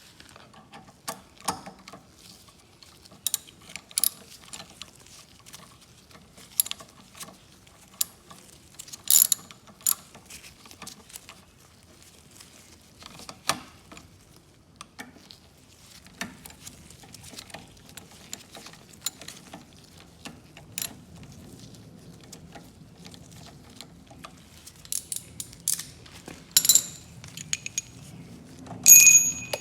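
Hand tools working the screws that hold the air filter assembly to a lawnmower's carburetor: irregular clicks, taps and metal clinks, with a few louder ringing metallic knocks near the end.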